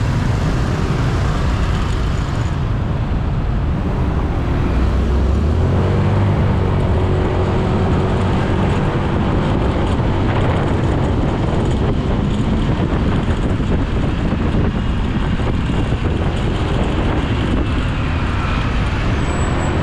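Ride on a motorbike through city traffic: a steady, loud mix of engine, road and wind noise, with other traffic passing close by.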